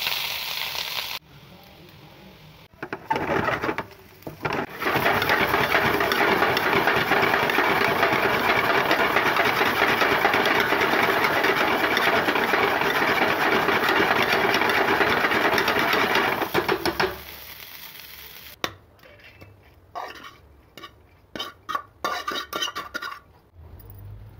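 Cooked rice being stir-fried in a steel pan: it opens with a short rush as the rice is tipped into the hot oil. Then comes a dense, continuous rapid scraping of a steel spoon against the pan for about twelve seconds. Near the end there are a few separate clinks and taps of the spoon on the pan.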